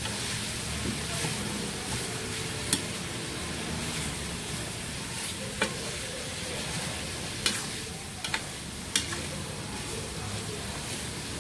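Chopped pakbet vegetables (squash, long beans, tomato) sizzling in a metal pan as they are stirred, with a steady hiss. The utensil clinks sharply against the pan about five times.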